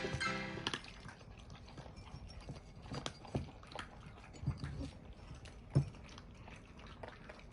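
Background music fades out in the first second, then a scattered series of light, irregular knocks and taps from the pets moving about, with a sharper knock about six seconds in.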